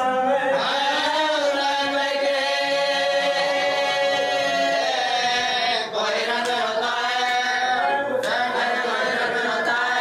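A man chanting a marsiya, a Shia elegy, in long held melodic lines that bend slowly in pitch, with a brief break for breath about six seconds in.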